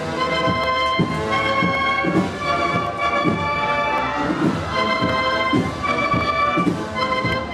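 Band music: a slow processional march with held chords over a low drum beat about once a second.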